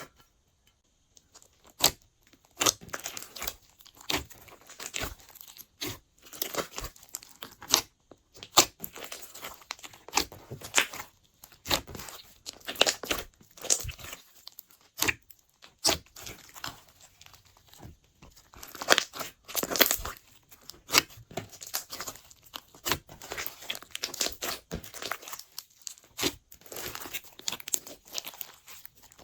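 Glossy slime being kneaded and stretched by hand, giving irregular sticky pops and crackles, several a second with short pauses.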